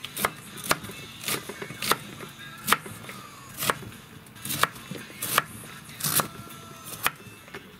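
Large kitchen knife chopping white cabbage on a cutting board: about ten sharp chops, roughly one a second and unevenly spaced, each blade strike knocking on the board.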